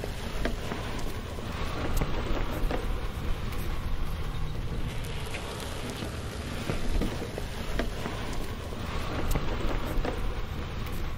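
A steady, noisy rumble with scattered clicks and crackles.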